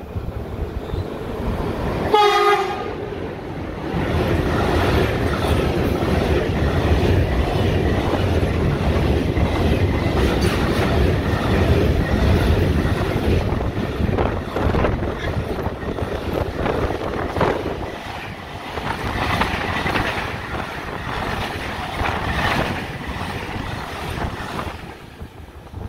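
One short horn blast about two seconds in from a pair of Class 4700 electric locomotives hauling a container freight train. The train then passes close by: a loud, continuous rumble of wagon wheels with rapid clattering over the rail joints, fading near the end.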